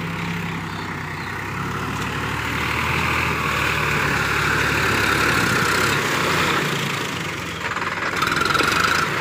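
Sonalika DI 47 RX tractor's diesel engine running steadily while pulling a rotary tiller through wet mud, growing louder from about two seconds in.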